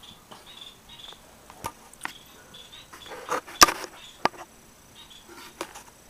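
Canary giving short, soft chirps at intervals, with several sharp clicks and knocks in between, the loudest about three and a half seconds in.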